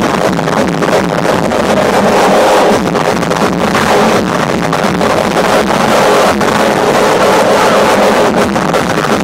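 Loud, dense hardcore electronic music with a distorted, noisy sound.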